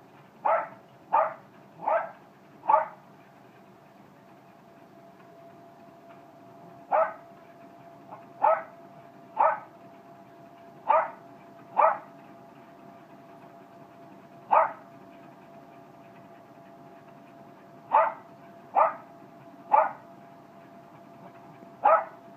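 Jack Russell terrier barking in short single barks, about fourteen in all: four in quick succession at the start, then in ones, twos and threes. Under the barks runs the steady hum and thin whine of a running treadmill.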